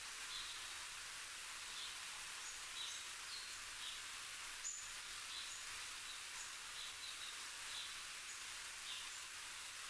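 Steady outdoor hiss with short, faint high chirps of small birds scattered throughout, and one sharp click about halfway through.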